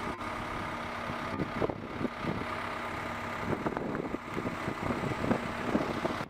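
A machine's engine running steadily, with scattered short knocks that come more often in the second half.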